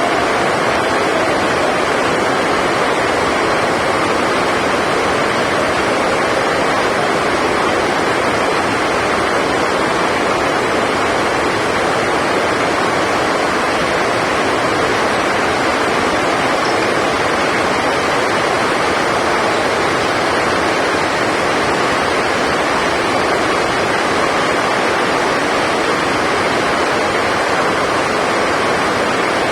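Heavy rain on the sports hall's roof: a loud, steady hiss with no letup.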